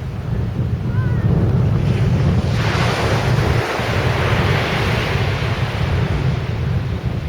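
Sea surf on a beach, with wind buffeting the microphone in a steady low rumble. About two and a half seconds in a wave breaks and its hiss swells, then slowly fades as it washes up the beach.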